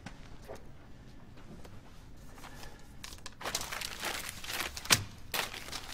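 Paper crinkling and rustling, banknotes being handled, starting about three and a half seconds in, with one sharp click about five seconds in.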